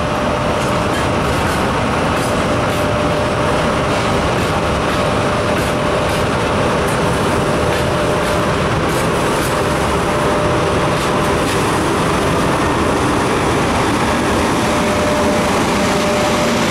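EP1M electric locomotive hauling an express passenger train out of the station at low speed, passing close by. Its running gear and electrical equipment give a steady loud drone with a thin steady hum, and the wheels run on the rails.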